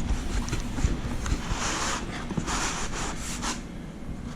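Cardboard packaging being scraped and rubbed as a cardboard insert is pulled out of a laptop box: several rough sliding swishes with a few light knocks.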